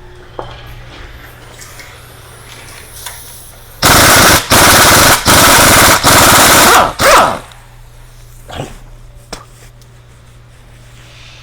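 Impact wrench hammering off the 12 mm propeller shaft joint bolts in four bursts of just under a second each, then a short fifth burst, starting about four seconds in.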